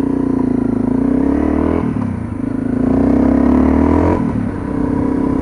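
Honda CRF250L's 250 cc single-cylinder four-stroke engine accelerating under way. Its pitch climbs, drops at a gear change about two seconds in, climbs again, and drops at another shift near the four-second mark before running steady.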